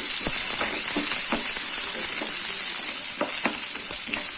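Chopped shallots sizzling in hot oil in a pan, with scattered clicks of stirring against the pan.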